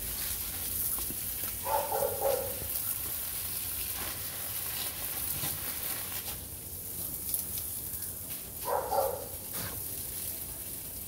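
Garden hose spray hissing steadily while a dog snaps and bites at the water, giving two short barks, about two seconds in and again near the end.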